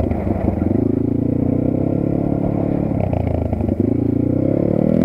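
Geon Dakar GNS300 enduro motorcycle's engine running under throttle as it is ridden; the revs dip about three seconds in and rise again near the end.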